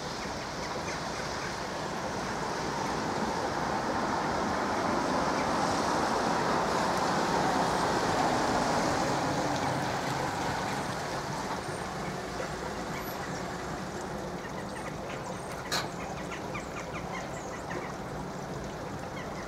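Rushing vehicle noise that swells over several seconds and eases off again, with one sharp click about three quarters of the way through.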